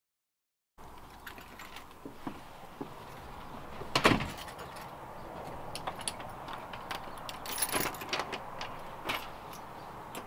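Keys jingling, with scattered small metallic clicks and one louder clack about four seconds in.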